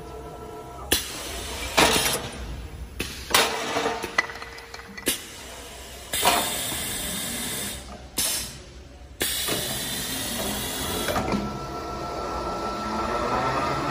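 Automatic wood-turning lathe cutting and sanding wood, heard as hissing bursts that start and stop abruptly several times. A steady machine whine comes in about eleven seconds in and rises slightly in pitch near the end.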